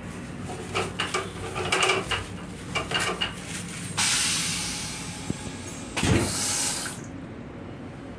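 Paper rustling and crinkling as it is handled and dropped into a train toilet bowl. Then two loud hissing bursts: the first starts suddenly about four seconds in and fades, and the second starts about six seconds in with a low thump.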